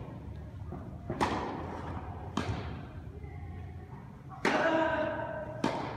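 Tennis ball struck by rackets and bouncing on an indoor hard court, four sharp knocks about a second apart, each with a short echo in the hall; the one about four and a half seconds in is the loudest and rings briefly.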